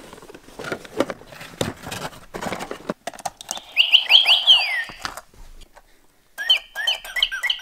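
Rustling and clicking as a toy is handled, then a battery-powered toy singing bird in a cage chirps electronic tweets through its small speaker. The tweets come in two bursts, one about three and a half seconds in and one near the end.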